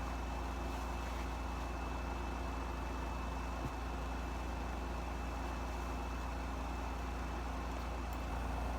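Steady low machine hum with a faint, thin high tone above it, unchanging throughout, and one soft click a little past the middle.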